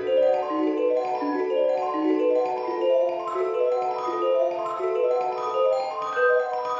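Background music: a quick, even run of short pitched notes, about four a second.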